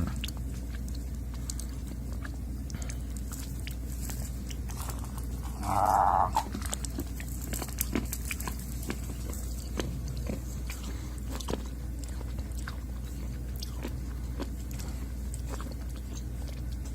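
Someone chewing and crunching Wonder Ball chocolate and candy, with many small scattered crunches and clicks. A brief, louder vocal sound comes about six seconds in.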